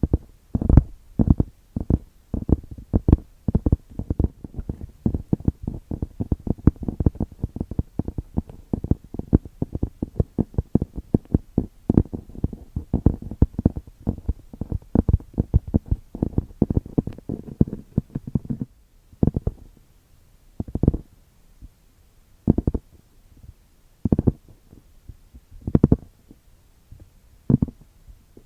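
Fingers tapping on a grimoire-style book, dull knocks. A fast, dense flurry of taps for about eighteen seconds, then slowing to single taps every second and a half to two seconds.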